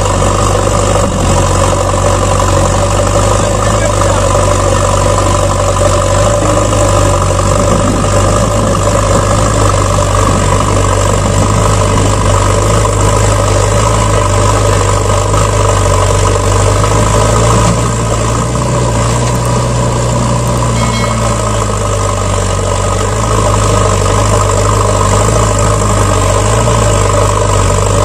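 Truck engine idling steadily, a recorded engine sound laid onto the footage, with a slight change in its low tone a little past halfway.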